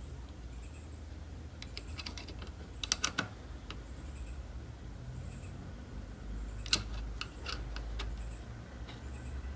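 Light clicks and taps of multimeter probes and handling on an inverter's circuit board during resistance checks, in two short clusters about two and seven seconds in, over a faint low hum.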